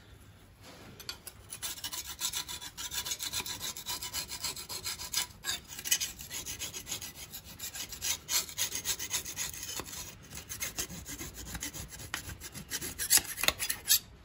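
A scraper being worked in quick repeated strokes, about three or four a second, scraping old liquid-gasket sealant off the sump mating flange of a 2.0 TDI diesel engine.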